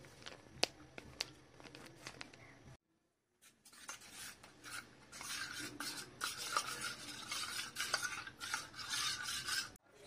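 Steel spoon stirring custard mixture in a steel bowl: a fast, busy run of scraping and clinking against the bowl. Before it come a few single sharp clicks and a brief dead gap.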